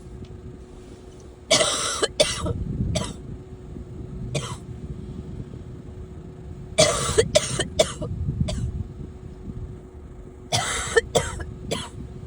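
A sick person coughing in three fits of several quick coughs each, a few seconds apart, over a faint steady hum.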